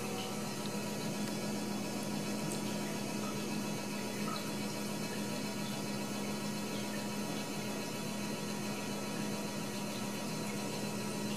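Steady hiss with a constant low hum underneath, unchanging throughout.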